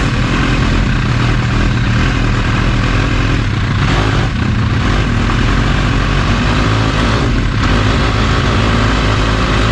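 Kawasaki H2's supercharged inline-four with an SC Project exhaust, running steadily on the move, with two brief dips about four and seven and a half seconds in. Picked up by a GoPro's own microphone.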